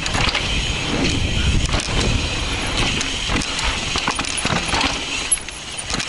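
Mountain bike, an Intense Tracer, rolling fast down a dry dirt trail: steady tyre and wind rumble on the mounted camera, with the rattle and sharp clacks of the chain and frame over bumps.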